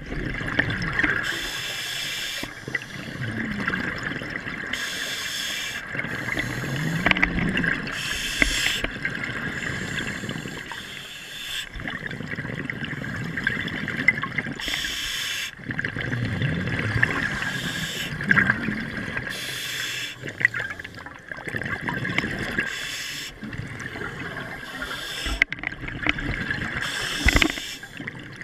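Scuba regulator breathing heard underwater: a hissing breath every few seconds alternating with a bubbling rush of exhaled air.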